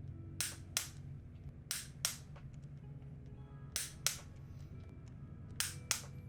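Click-type torque wrench breaking over at its set torque of 43 ft-lb on the engine's bottom-end bolts: four sharp double clicks, a second or two apart, each pair a third of a second from first click to second.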